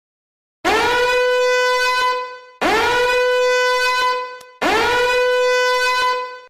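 A horn-like blast sound effect, played three times in a row: each blast scoops up quickly into a steady, buzzy note, holds for about a second and a half, and then fades away.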